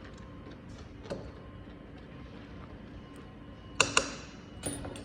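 Two sharp clicks about a fifth of a second apart near the end, followed by a brief rustle, over faint steady room hum; small taps during the earlier part.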